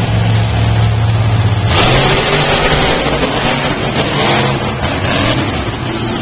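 Monster truck engines running, a steady low idle at first; about two seconds in one truck goes to full throttle and runs loud and noisy as it accelerates into a jump, with a second surge a couple of seconds later.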